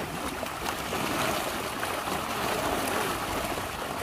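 Pond water splashing and churning without a break as a net full of tilapia is gathered in by hand, the fish thrashing at the surface.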